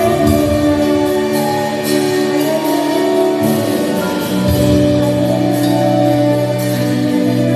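Worship music with long held chords that shift to a new chord about four seconds in.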